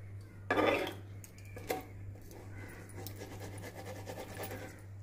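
Steel ladle stirring and pressing noodles in a pan of cooking masala broth: a loud scrape about half a second in, then a light, steady crackle of soft stirring and bubbling, over a low steady hum.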